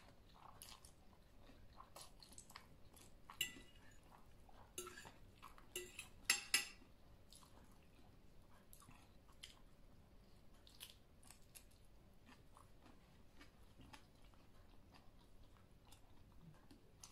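Person eating a spicy noodle salad with their mouth close to the microphone: quiet chewing and mouth sounds with scattered short clicks, the loudest a quick run of clicks about six seconds in.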